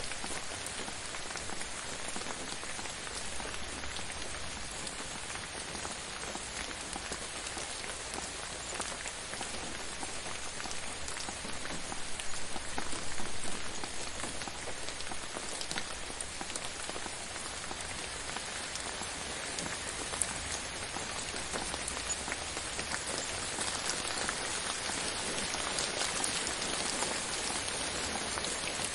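Steady gentle rain falling on a surface, a dense patter of individual drops, briefly a little heavier about halfway through.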